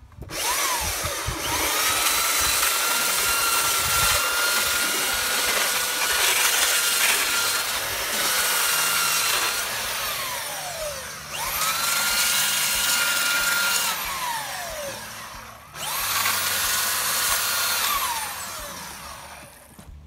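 Electric belt sander running against weathered painted wood, knocking off chipped paint before repainting. It runs for about ten seconds and then two shorter spells; each time it is switched off its whine falls as the motor winds down, and it rises again on restart.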